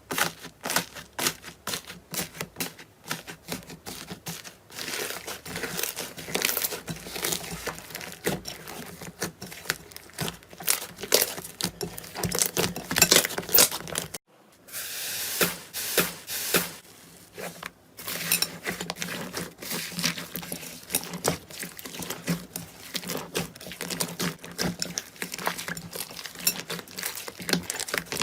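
Slime being squeezed, poked and stretched by hand, giving dense, irregular crackling and popping clicks. A brief break about halfway through, after which the crackling goes on.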